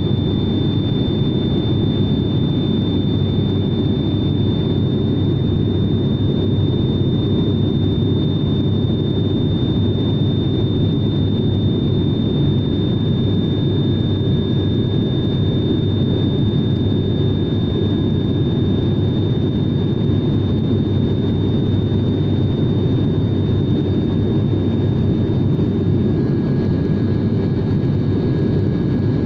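Propeller aircraft's engine and propeller running steadily in cruise, heard from inside the cabin as a constant low drone with a thin high whine over it. A second, fainter whine comes in partway through and grows stronger near the end.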